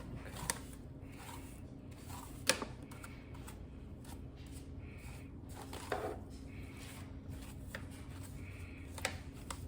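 Scattered light clicks and taps of small objects being handled, with one sharper knock about two and a half seconds in, over a faint steady hum.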